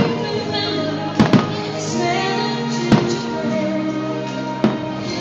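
Fireworks bursting with several sharp bangs over loud orchestral show music, including a quick double bang about a second in.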